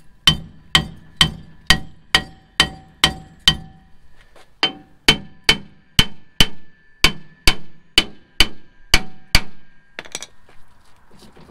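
A Toyota Tacoma's rear brake drum being struck around its centre hub with the head of an axe, about nineteen blows at roughly two a second with a short break partway through, each blow ringing like metal. The drum is corroded onto the hub and stuck, and the blows are meant to break it free.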